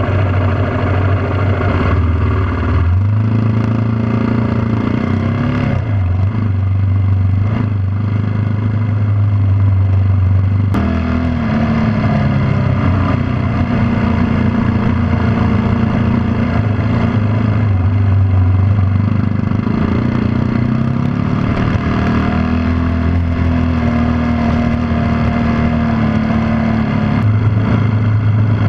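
Yamaha WR250R dual-sport motorcycle's single-cylinder four-stroke engine running under way on a dirt road, its note falling and climbing several times as the throttle and speed change, over a steady rush of wind and road noise.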